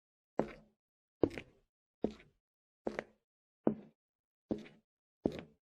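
Footsteps sound effect: slow, evenly spaced steps, seven of them, about one every 0.8 seconds, each a short thud with a brief tail.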